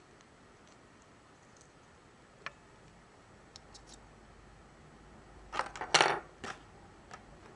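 Small plastic Lexar USB card reader, with a microSD card in it, being handled and set down on a wooden tabletop: a few faint clicks, then a brief clatter of sharp knocks about five and a half to six and a half seconds in.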